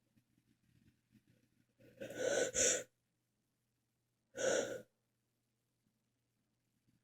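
A person sneezing twice, a sharp sudden burst about two seconds in and another about two and a half seconds later. The first comes in two quick parts, a gasping in-breath running straight into the sneeze.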